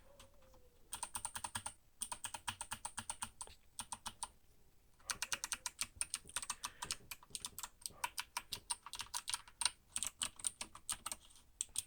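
Typing on a computer keyboard: quick runs of key clicks, with short pauses near the start and around four seconds in.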